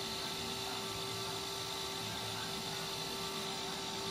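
Room tone: a steady hum with a faint hiss, and no distinct event.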